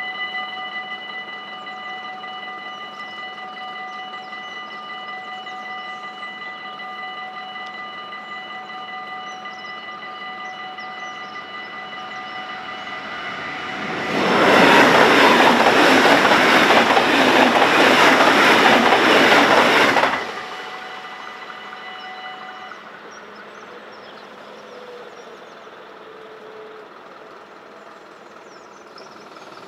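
Dutch level-crossing bell ringing steadily with the barriers down. About 14 seconds in a train passes for about six seconds, loud and rushing, and the bell stops about 23 seconds in.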